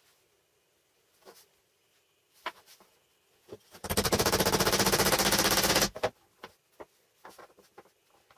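A power tool runs for about two seconds with a rapid rattling beat, between a few light knocks and clicks of handling.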